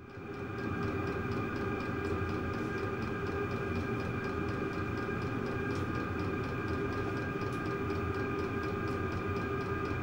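Chinese-made diesel air heater running: a steady whirring hum from its blower fan and combustion chamber, with several steady tones and a faint regular ticking from the fuel pump. The sound fades in over about the first second.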